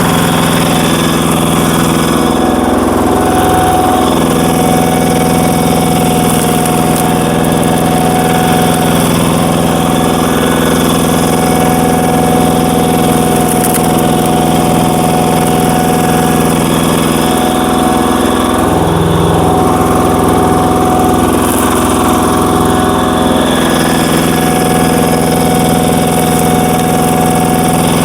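Power tiller's single-cylinder diesel engine running loudly and steadily, driving a screw log splitter. Twice its pitch sags briefly and recovers.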